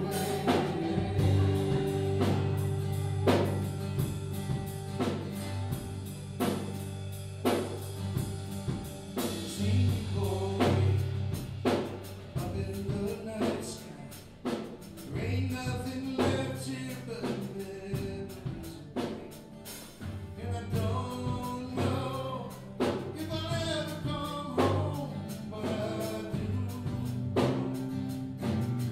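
Live rock band playing a song: drum kit hits, sustained bass notes, electric and acoustic guitars, with voices singing.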